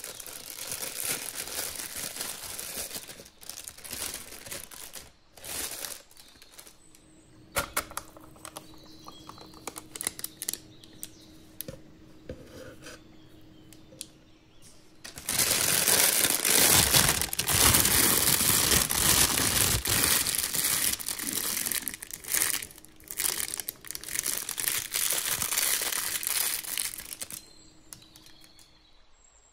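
Thin plastic piping bag crinkling and rustling as it is handled, filled with custard cream and twisted shut. It is louder and denser for about twelve seconds in the second half, with scattered crackles and ticks in between.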